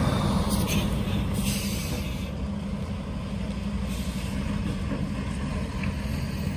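Tractor-trailer truck driving past, its diesel engine hum fading as it moves away, with a few brief hisses in the first two seconds.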